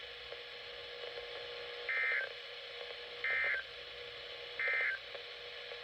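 Emergency Alert System end-of-message data signal: three short, identical bursts of warbling two-tone digital data, a little over a second apart, marking the end of the alert.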